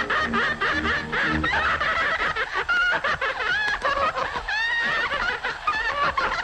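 High-pitched cartoon laughter: giggles and snickers, broken into quick bursts, with a lively 1930s music cue underneath that thins out about a second and a half in. The characters are cracking up from laughing gas.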